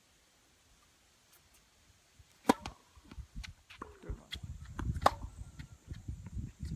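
A tennis ball struck sharply by a racket about a third of the way in, after near silence. From about halfway on comes a dense run of low thumps and scuffs, typical of footsteps on the court, with further sharp ball hits among them.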